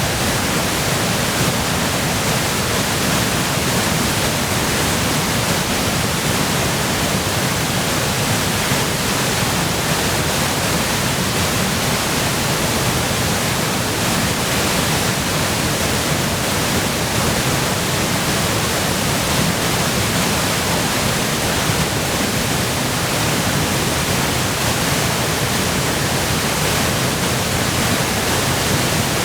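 Roaring waterfall in high flow, swollen by spring meltwater and heavy rain: a steady, dense rush of falling water with no breaks.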